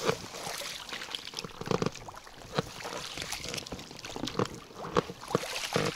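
Water splashing and trickling around a small boat, with scattered light knocks and clicks from the hull and gear.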